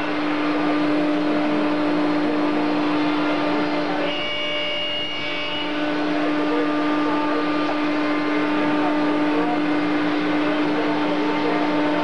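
Thermwood CNC router machinery running: a steady mechanical drone with a constant hum. A high whine comes in about four seconds in and fades out under two seconds later.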